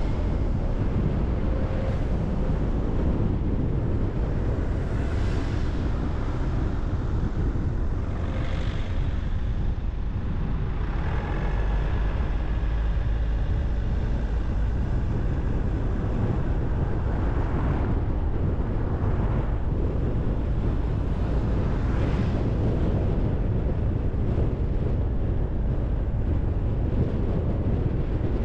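Steady low rumble of a car driving on city streets: engine and tyre noise, with a few brief swells as other sounds rise and fall.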